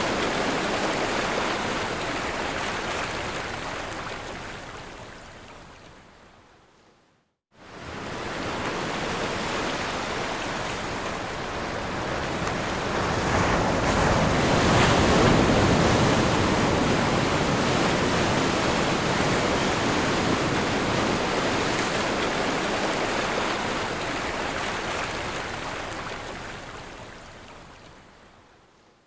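Ocean surf: a steady rushing wash of waves that fades out to silence about seven seconds in, cuts back in abruptly, swells to its loudest around the middle, then fades out again near the end.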